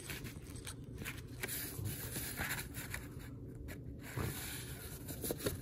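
Soft rustling and scraping of a folded card certificate handled and shifted by gloved fingers.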